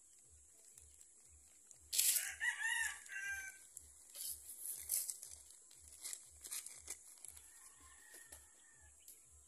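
A rooster crows once about two seconds in, a call of roughly a second and a half that is the loudest sound. It is followed by a few seconds of crackling and rustling as a black plastic nursery bag is handled and pulled off a seedling's root ball.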